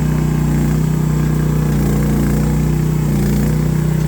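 AGT H12R mini excavator's engine running steadily at raised throttle while the machine slews around, a constant hum with only faint, brief shifts in tone.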